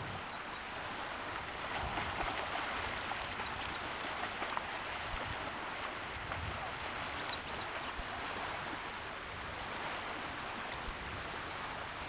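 Steady rushing noise of lake water in the shallows, with a few short, high bird chirps.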